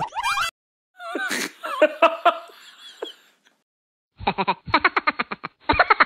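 A person laughing hard in a fast, even run of 'ha-ha' pulses, about five a second, starting about four seconds in and breaking off briefly near the end. Before that there are about two seconds of wavering vocal sounds.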